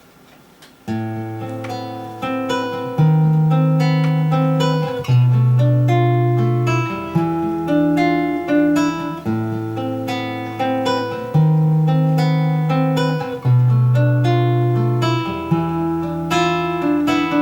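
Acoustic guitar playing a picked chord accompaniment that starts about a second in. Bass notes change about every two seconds, and the same chord progression comes round twice.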